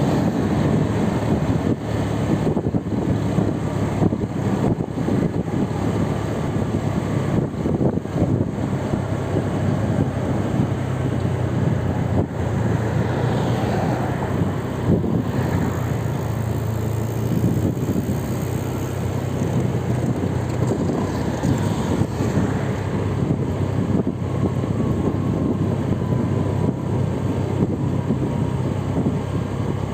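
Road vehicle noise: a steady engine drone with road and wind noise on the microphone. Faint rising and falling tones in the middle come from other traffic.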